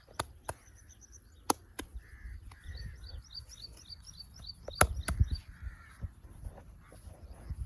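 Sharp smacks from a traditional head and shoulder massage, scattered: a couple in the first two seconds and a loud cluster about five seconds in. Small birds chirp in quick repeated notes behind them.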